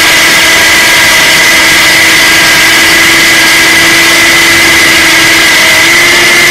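A 21 V cordless hammer drill in its concrete mode, boring into a concrete block. It runs loud and steady throughout, its pitch stepping up slightly near the end.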